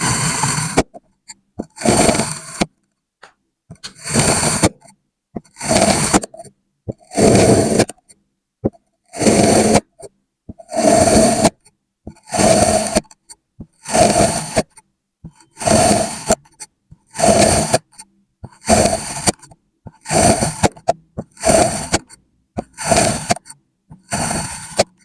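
Kinetic sand being worked in a steady series of strokes, each a short scrape lasting under a second, about one every second and a half.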